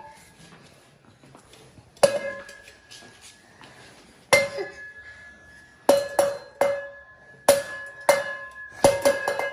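Small lidded stainless-steel milk can knocked against a hard surface, clanking about ten times, each knock ringing briefly. The knocks are spaced out at first and come quickly near the end.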